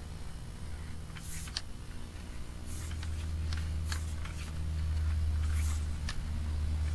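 Low steady hum of sewer inspection equipment with irregular light clicks and ticks from handling the camera gear.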